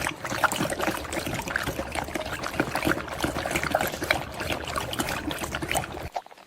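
Water trickling and splashing, a dense patter that cuts off suddenly near the end.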